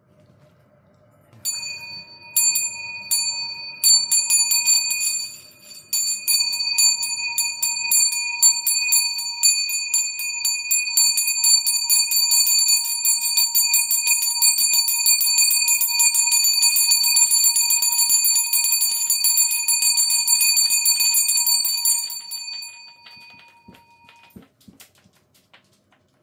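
A bell shaken rapidly and without a break, its clapper striking many times a second over a steady ringing tone. The shaking stops about 22 seconds in and the bell rings away over the next couple of seconds.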